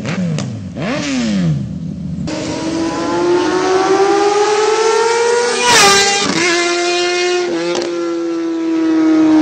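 Sportbike engines at high revs. In the first two seconds a passing bike's note sweeps up and then drops in pitch. Then another bike accelerates hard, its engine note climbing steadily until it drops at an upshift about two-thirds of the way in, after which it holds high revs and slowly sinks.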